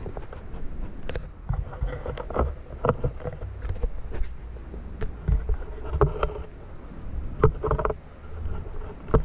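Irregular scuffs, rustles and knocks from someone moving about on the bank and handling a wet sack just pulled from the canal, over a steady low rumble.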